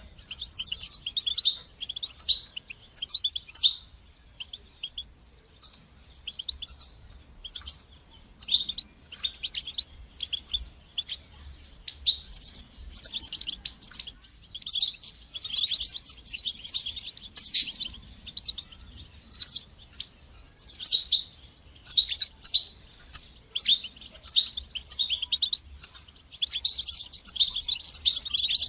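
European goldfinch singing: quick twittering phrases of rapid, high, tinkling notes, delivered in short bursts with brief pauses between them.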